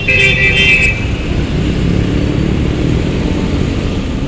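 Road traffic: motor vehicle engines running with a steady low rumble, and a vehicle horn sounding once for about a second at the start.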